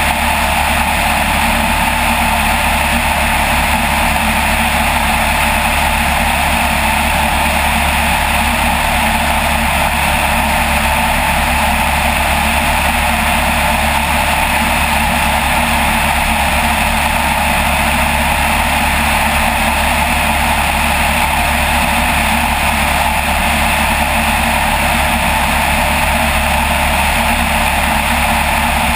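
A light aircraft's engine and propeller running steadily in level flight, an even drone that holds constant throughout.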